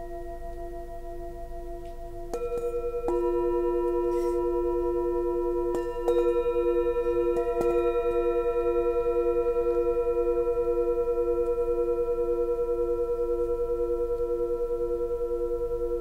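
Singing bowls struck one after another with a padded mallet, about five strikes in the first half, their tones layering and ringing on. The lowest tone wavers in a steady pulse as it sustains.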